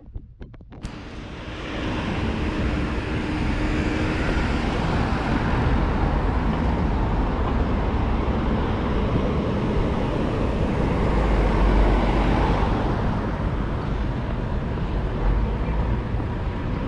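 City road traffic passing: a steady wash of engine and tyre noise. A passing vehicle's low rumble swells about eleven seconds in.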